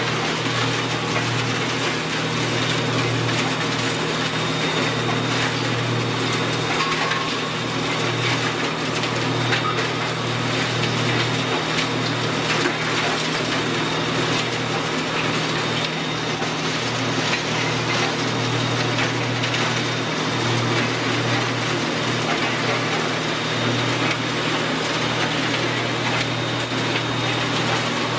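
Large mobile wood shredder running steadily under load, its engine humming low while stumps and roots are crunched and ground up.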